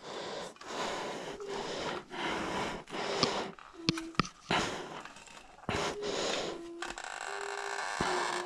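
Heavy, effortful breathing close to the microphone, in a run of breaths each about a second long. The effort comes from squeezing a boiled potato through a hand-held potato ricer.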